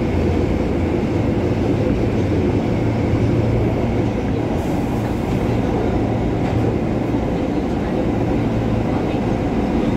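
R143 subway car running at speed through a tunnel, heard from inside the car: a steady, even rumble of wheels on rail and running gear.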